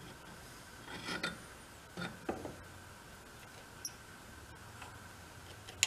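Faint handling sounds of a Warn ATV winch's electric motor being twisted against its gearbox to line up the keyed shaft: a few light scrapes and small squeaks, then a sharp click near the end.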